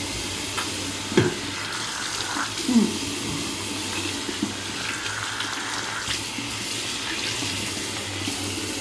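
Bathroom sink tap running steadily, water splashing into the basin for mouth rinsing after tooth- and tongue-brushing. Two brief louder sounds come about a second and three seconds in, and the tap is shut off at the very end.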